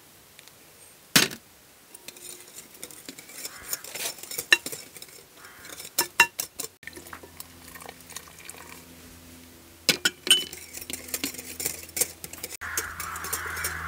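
Wire whisk beating a liquid mixture in a glass bowl, clinking rapidly against the glass in two spells, with one sharp knock about a second in.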